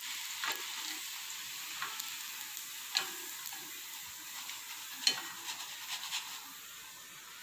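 Hot oil sizzling steadily as battered cauliflower pieces fry, with a few sharp clicks along the way.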